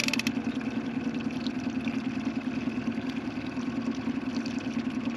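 Boat motor running steadily at trolling speed, a low even hum, with a short clatter right at the start.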